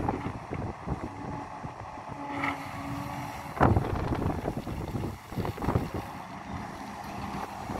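Hidromek HMK 230LC excavator's diesel engine working under load as the bucket digs into the soil and lifts, with gusts of wind on the microphone. There is a sharp knock about three and a half seconds in.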